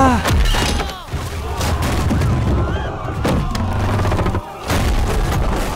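Royal wooden palanquin tipping over and breaking apart, with a run of loud cracks and crashes over a low rumble. Men shout through it.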